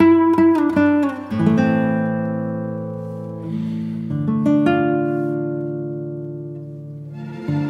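Background music on acoustic guitar: a run of quickly plucked notes, then a few long chords left ringing and slowly fading, with the playing picking up again near the end.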